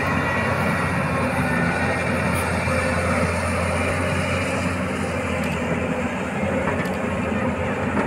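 Hyundai 215L crawler excavator's diesel engine running steadily under working load as the machine digs and swings its bucket to load a tipper truck.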